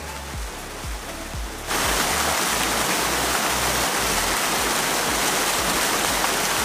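Background music with a steady low beat. About two seconds in, the loud, steady rush of a small waterfall pouring into a rock pool comes in and stays over it.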